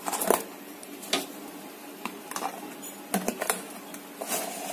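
Snap-on plastic lid being pressed down onto a plastic food tub: a run of irregular sharp plastic clicks and snaps as the rim seats, the loudest just after the start.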